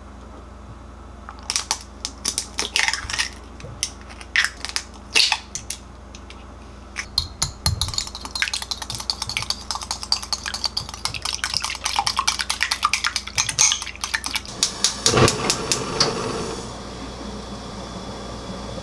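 Eggs tapped and cracked against a glass bowl, a few sharp clicks, then beaten fast in the bowl: a quick, dense clatter of the utensil against the glass. Near the end a dull clunk, then a steady hiss.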